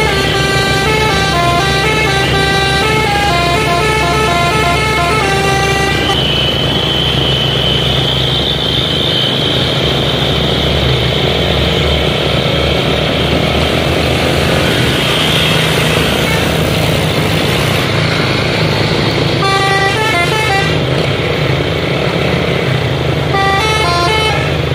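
Heavy Hino trucks' diesel engines running under load, with a multi-tone musical air horn playing a stepping melody for about the first six seconds and two short bursts of the tune again near the end. A high whine runs over the engines for several seconds in the middle.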